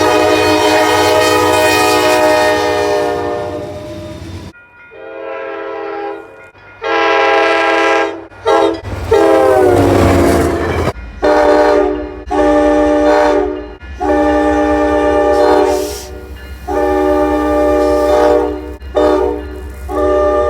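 Train air horns sounding a series of multi-tone blasts, long and short, with one horn dropping in pitch around ten seconds in as the train passes. The last part runs long, long, short, long over the low rumble of a passing train, the grade-crossing signal.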